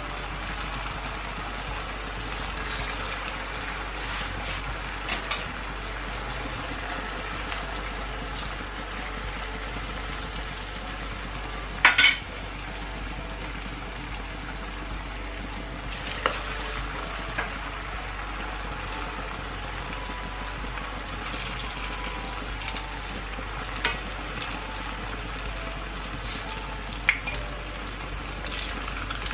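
Pumpkin churros deep-frying in hot oil, a steady sizzle and bubbling. A few sharp clicks break through it, the loudest about twelve seconds in.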